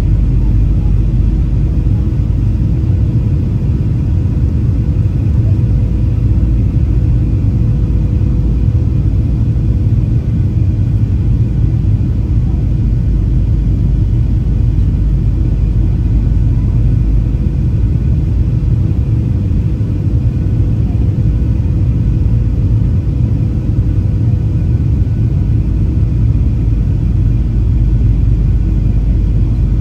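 Jet airliner cabin noise at a window seat beside the wing engine: a steady low roar of the jet engine and airflow, with a faint steady whine above it.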